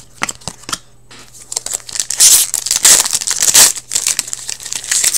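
Foil wrapper of a 2018-19 Upper Deck Trilogy hockey card pack crinkling as it is handled and torn open, with a few light clicks near the start.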